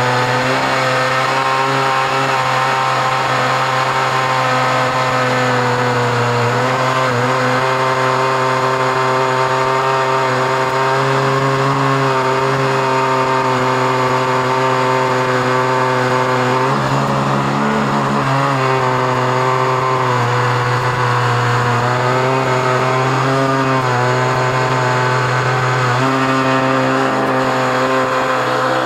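Stihl MS880 two-stroke chainsaw running flat out under load in a chainsaw mill, ripping a lengthwise slab through a 32-inch oak log. The engine note holds steady and dips briefly a few times along the cut.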